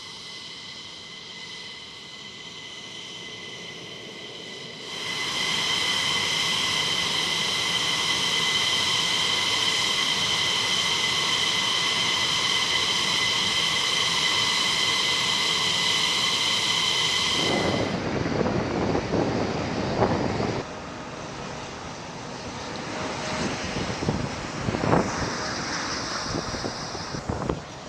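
F-15E Strike Eagle's twin jet engines running on the ground with a steady high whine, which grows clearly louder about five seconds in. Just before eighteen seconds the whine cuts off, and a rougher rushing noise with a few sharp knocks follows.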